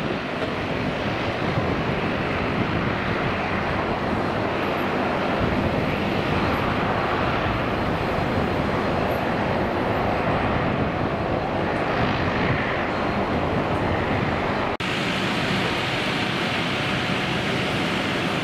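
Jet engines of a Boeing 777 rolling along the runway with its spoilers raised, a steady rushing roar. About fifteen seconds in, the sound cuts abruptly to similar jet engine noise from another twin-jet airliner on the runway, with a bit more hiss.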